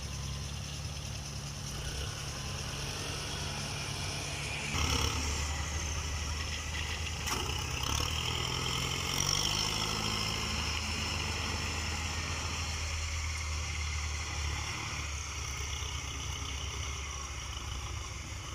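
Diesel engine of a Kubota DC105X combine harvester running. It picks up speed and gets louder about five seconds in, then eases back near the end. The engine has over 1600 hours and its injection pump is said to still run smoothly.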